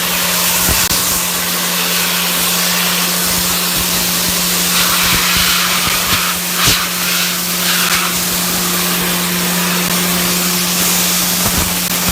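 Dry ice blaster firing compressed air and ice at fire-charred wood: a loud, steady hiss with a steady low hum underneath.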